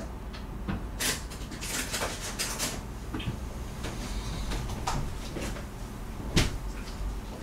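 A door opening and shutting and things being handled, heard away from the microphone: a flurry of knocks and rattles in the first few seconds, then one sharper knock, the loudest, near the end.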